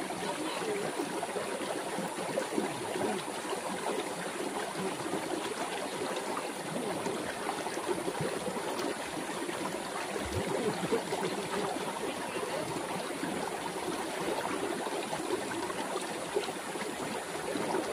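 Shallow river water babbling and trickling around rocks, with light splashing from people bathing in it.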